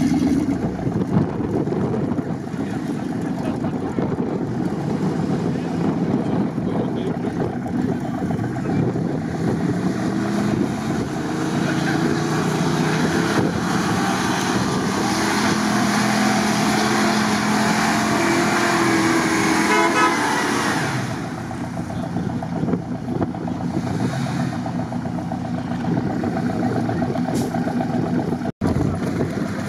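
A 4x4's engine running in deep mud, revving hard for several seconds from about a third of the way in, then easing back to a lower steady running sound.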